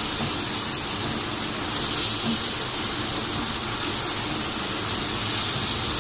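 Onion, tomato, pepper and spice masala sizzling in oil in a nonstick pan as it is sautéed and stirred with a silicone spatula: a steady hiss.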